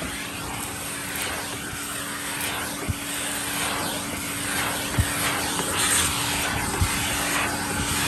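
A 1969 Electrolux Model 1205 vacuum cleaner running steadily, with a constant motor hum and the rush of air pulled through its round dusting brush as the brush scrubs a car's carpeted floor mat. A few low knocks come through, about two seconds apart.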